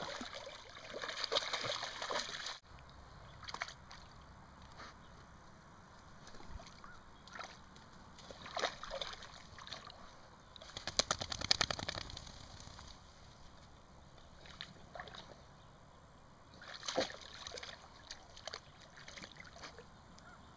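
Water splashing and sloshing in irregular short bursts, with a denser run of rapid splashes near the middle.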